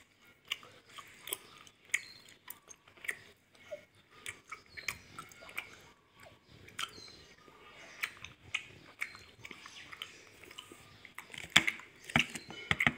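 Close-up chewing of gummy candy: irregular wet mouth clicks and smacks. A sharp knock comes about a second and a half before the end.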